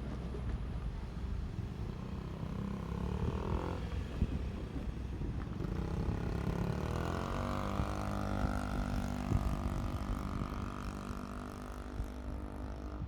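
JR Shikoku Series 1500 diesel railcar running, its engine note rising in pitch about six to eight seconds in as it accelerates, with clattering knocks from the wheels on the track.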